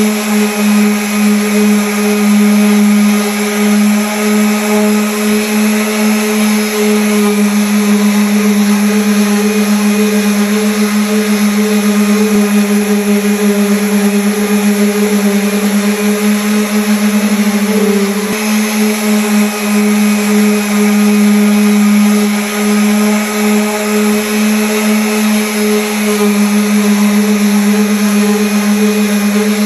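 Electric sander running steadily against wood: a loud, even hum over a gritty hiss, with a brief shift in tone about eighteen seconds in.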